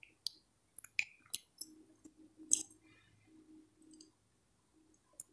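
A few faint, irregular clicks over near silence, the loudest about two and a half seconds in.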